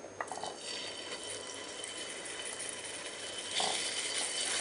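Cubed meat sizzling in hot oil as it goes into a frying pan. The sizzle starts just after a light knock at the very beginning and gets louder about three and a half seconds in.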